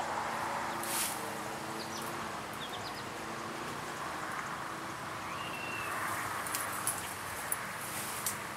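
Outdoor woodland-edge ambience: a steady background hiss, a brief high bird chirp a little past five seconds in, and a few faint sharp clicks scattered through it.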